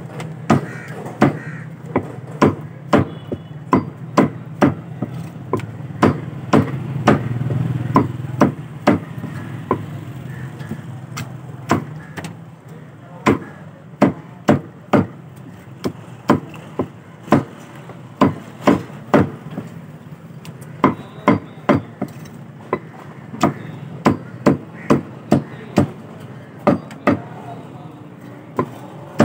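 Meat cleaver chopping raw chicken on a round wooden chopping block: sharp thwacks, irregular, about one or two a second and often in quick pairs, over a steady low hum.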